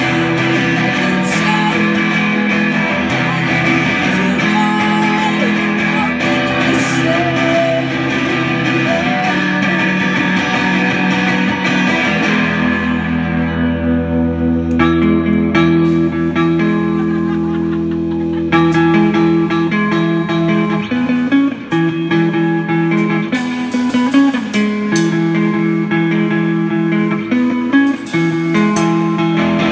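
Live rock band playing: an electric guitar on an offset-body model, with a drum kit. About 12 seconds in the drums and cymbals drop out, leaving the guitar ringing on alone, and the drums come back in about six seconds later.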